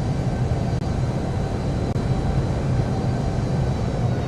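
Jet airliner engines running, a steady rumble with a constant low hum.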